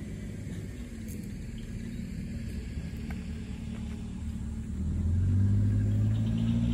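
Low, steady engine rumble of a motor vehicle, growing louder about five seconds in.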